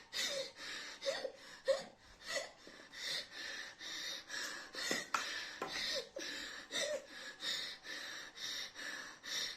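A woman panting in quick, sharp gasps, about two a second, with a few short catches of the voice. She is struggling to breathe against the burn of an extremely hot chili chip.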